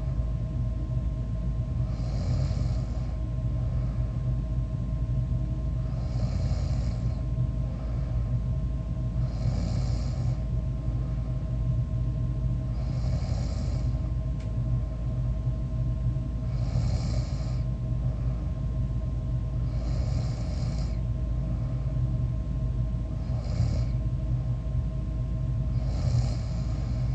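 A sleeping person snoring, about one rasping breath every three and a half seconds, eight in all, over a steady low hum.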